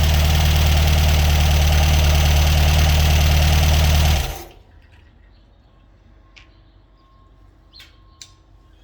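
Freshly rebuilt Ford 1.7-litre V4 engine running steadily on its first start after a complete rebuild, then shut off about four seconds in and dying away quickly. After that only a few faint clicks.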